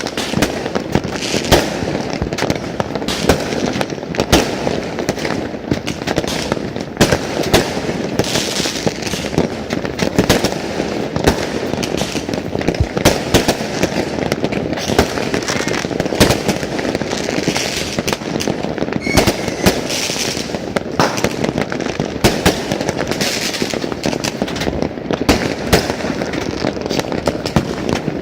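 Fireworks going off continuously, many sharp bangs and crackles overlapping with no pause.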